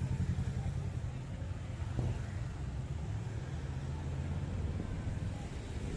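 Street traffic: cars and motorbikes passing close by on a busy road, engines running with a steady low rumble.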